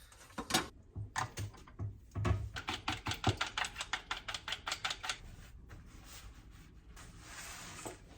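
A quick, uneven run of sharp clicks and taps, several a second, lasting about five seconds and then stopping, leaving a faint hiss.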